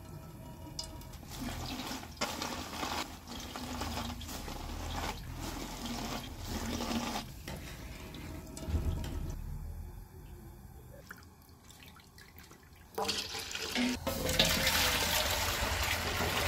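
Pomegranate juice wrung by hand from pulp in a cloth bag, with wet squelches and juice dripping and spattering onto a perforated steel strainer tray. Near the end a steady stream of juice is poured from a jug into a large aluminium pot.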